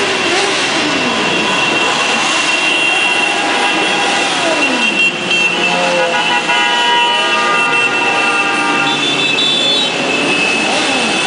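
A column of motorcycles riding past, engines revving up and falling away one after another, with horns sounding over them. A long horn blast comes about two thirds of the way through.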